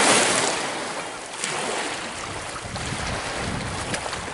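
Water splashing as feet wade through the shallows of a lake, loudest near the start, then small waves lapping at the shore with wind on the microphone.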